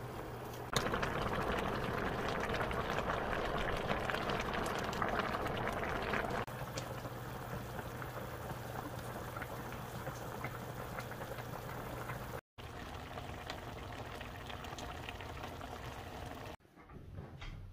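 Chicken stew boiling in a pan, a steady bubbling that changes level at each cut and drops out briefly about twelve seconds in. Near the end it gives way to quieter spoon and stirring sounds.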